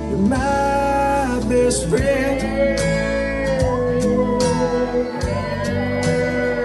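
A song plays with a singer holding long, slowly bending notes over the band.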